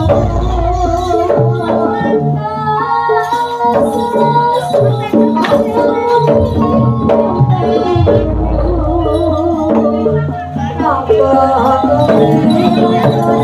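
Jaranan music from a live ensemble: a melody over drums and jingling percussion, with a deep low boom near the start and again about eight seconds in.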